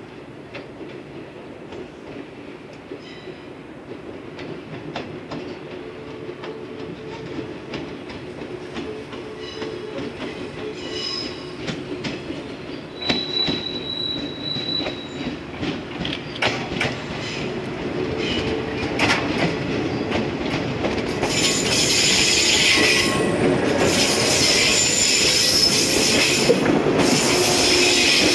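A JR West 115-series electric train approaching and passing close, getting steadily louder, its wheels knocking over rail joints. About halfway there is a brief high whine, and in the last quarter the wheels screech as they pass.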